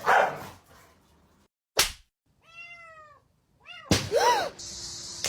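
A cat meowing: two drawn-out meows, each rising then falling in pitch, about two and a half and four seconds in. A loud burst of noise comes at the start and a sharp knock just before the first meow.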